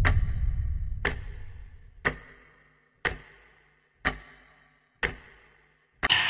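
Clock ticking, one sharp tick a second, seven ticks in all. A low rumble fades out over the first two seconds, and a louder hit near the end rings on.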